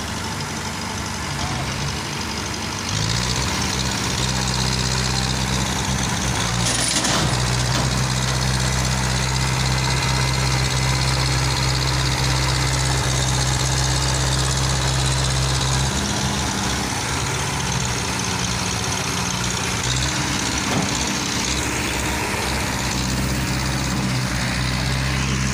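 Tractor engine running steadily, then revving up to a higher, louder pitch about three seconds in and easing back a little over halfway through, as it strains to pull through soft mud. There is one short sharp knock about seven seconds in.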